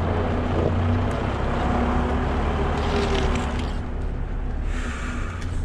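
Truck diesel engine running steadily while driving the tipper's hydraulics during unloading, with two short hisses about three and five seconds in.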